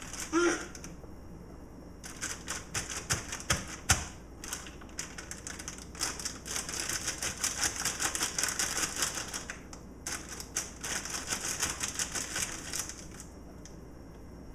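Rapid, dense clicking and rattling of small hard objects being handled, in long runs from about two seconds in until near the end, with a short squeak from a child right at the start.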